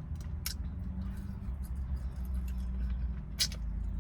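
Close-up eating sounds of someone chewing fried pork chop, with wet mouth clicks and a couple of sharper smacks, over a steady low hum inside a car.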